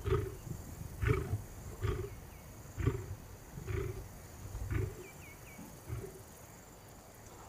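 Male lion roaring: a run of deep grunts about one a second, seven in all, growing weaker towards the end.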